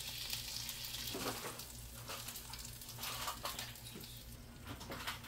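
Faint sizzling of chicken on a hot ridged grill pan, with a few soft clicks here and there.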